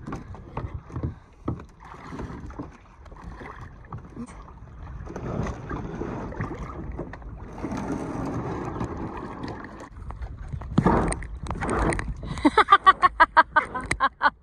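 Kayak paddles working in shallow water as sit-on-top kayaks are pushed off and paddled: splashing and sloshing strokes, with scattered knocks of paddle against plastic hull. Two louder splashing strokes come about eleven and twelve seconds in.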